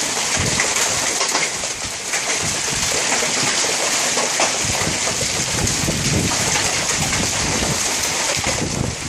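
Hail and rain pelting down and hitting the house, a dense hiss full of small impacts. Gusts of wind buffet the microphone from about half a second in.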